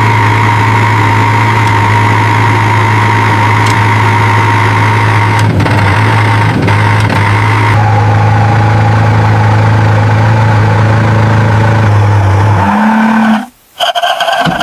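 Engine of a small truck running steadily at one pitch. Near the end it steps up in pitch and then cuts out briefly.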